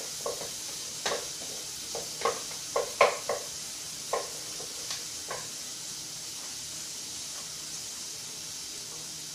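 Onions sizzling in a stainless steel pot, with a wooden spoon stirring and knocking against the pot several times in the first half, the loudest knock about three seconds in. After that only the steady sizzle continues.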